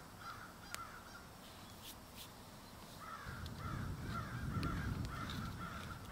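A bird calling outdoors in rapid runs of short notes, a brief run near the start and a longer one from about halfway. From about halfway a louder low, wet mixing sound joins in: a spoon stirring sour cream and chopped pickles in a wooden bowl.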